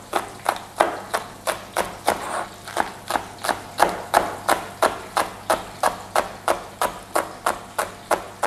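Chef's knife chopping spring onions on a plastic cutting board: steady, even knife strikes on the board, about three a second.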